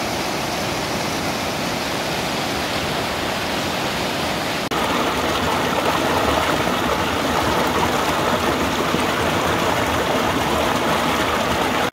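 Shallow rocky river rushing and churning over boulders, a steady noise of white water that steps up louder about five seconds in.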